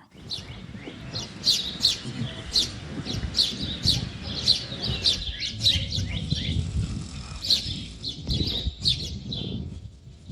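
Birds chirping: many short, high chirps in quick succession over a low, steady rumble of outdoor background noise.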